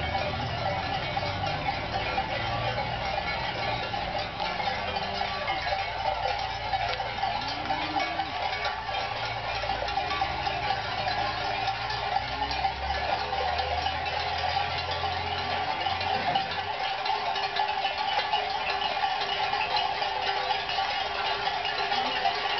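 Many cowbells clanking continuously on a herd of cattle on the move.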